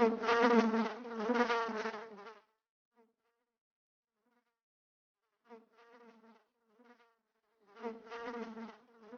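Buzzing of flies, a cartoon sound effect around heaps of rubbish. It comes in bouts: a loud buzz for about two seconds at the start, then fainter buzzing returning about five and a half seconds in and again near the end.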